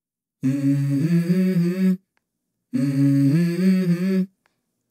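Background music intro: a wordless, hummed vocal phrase that plays twice, each time about a second and a half long, with a short dead silence between.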